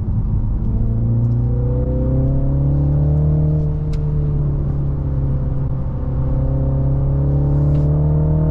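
Mini Countryman John Cooper Works' two-litre four-cylinder engine pulling in sport mode, heard from inside the cabin along with road noise. The engine note rises over the first few seconds, eases slightly, then climbs again near the end.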